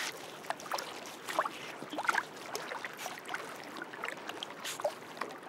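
Beavers moving in shallow water at the edge of their mud lodge: small splashes and trickling water, with scattered faint clicks and a few short high chirps.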